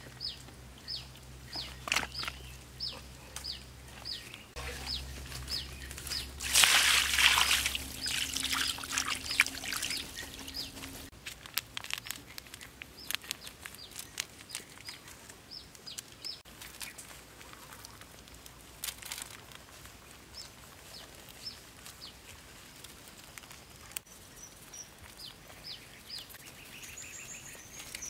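Raw fish bones handled and laid out on a steel tray, with scattered clicks and a brief loud noisy rush about seven seconds in. Over it a bird chirps steadily, about two short high chirps a second, pausing for a few seconds midway.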